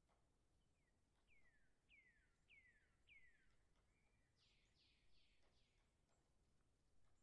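Rose-ringed parakeets calling faintly: a run of five or six quick downward-sliding calls, then four harsher screeches about four and a half seconds in.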